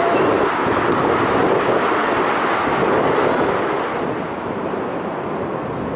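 A landing jet airliner's engine noise as it passes low overhead on final approach, easing off slightly about four seconds in, with wind noise on the microphone.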